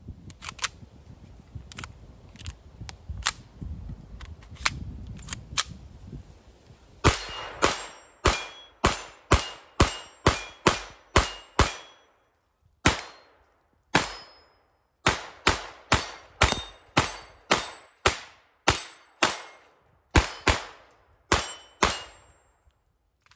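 Kel-Tec CP33 .22 LR pistol firing a rapid string of about thirty sharp shots, roughly two to three a second with a couple of brief pauses, starting about seven seconds in. Before that come scattered clicks and handling noise as a jam is cleared from the pistol.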